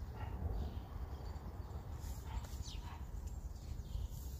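Wind rumbling on the microphone, with a few short high bird chirps that drop quickly in pitch, two of them close together about two and a half seconds in.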